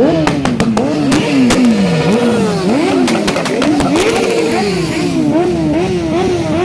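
A motorcycle engine being revved over and over, its pitch climbing and dropping in repeated blips that come quicker and shorter toward the end. Several sharp cracks sound in the first two seconds.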